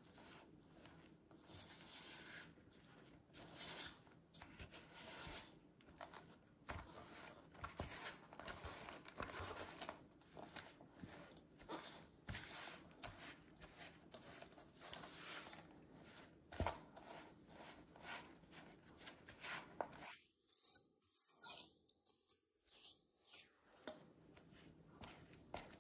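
Faint, irregular scraping and squelching of a silicone spatula stirring a sticky flour-and-water bread dough in a stainless steel bowl, with a few light knocks of the spatula against the bowl.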